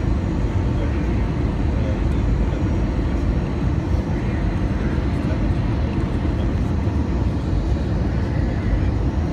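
Steady engine and airflow noise inside a passenger aircraft's cabin during its descent to land, a constant low rumble with no distinct events.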